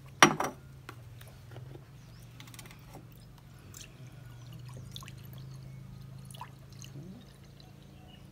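Fresh milk pouring from a carton into a glass bowl, a faint trickle. A sharp knock comes just after the start and is the loudest sound, over a steady low hum.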